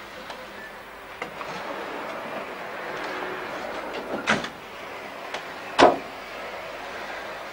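Electric locomotive and coaches rolling over station points, with a steady rumble broken by a few sharp metallic clanks. The loudest clank comes about six seconds in.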